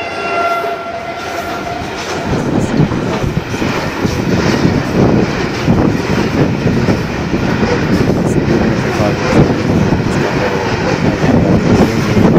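Diesel locomotive horn sounding as the engine passes close by, cutting off about two seconds in. Then a long goods train of covered wagons rolls past at speed: a steady heavy rumble of wheels, with clattering over the rail joints.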